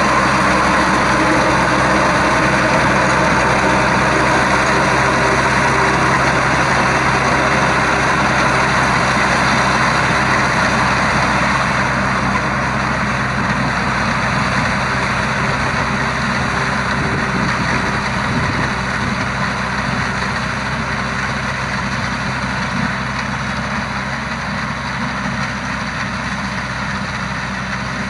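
Shibaura V52F tractor's 52-horsepower four-cylinder diesel engine running steadily under load while driving a rear rotary tiller through wet rice-field mud. It grows a little fainter from about twelve seconds in.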